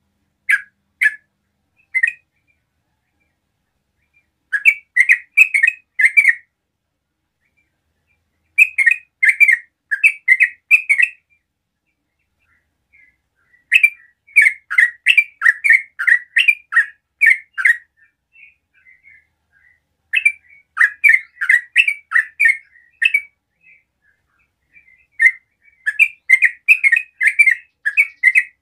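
A bird chirping: quick runs of short, sharp, high chirps, five to ten in a row, with pauses of a second or more between runs.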